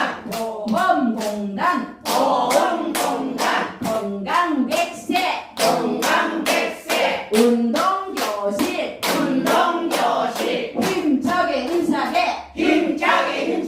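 A group clapping in unison in a steady rhythm, about two claps a second, with several voices singing or chanting along: the closing 'health clap' routine of a laughter exercise class.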